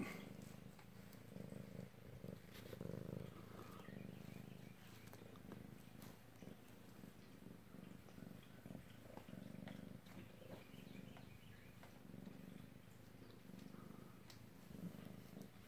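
Domestic cat purring faintly and steadily, a low rumble that swells and eases every second or two, with a few soft rustles of the cats shifting on a fabric cushion.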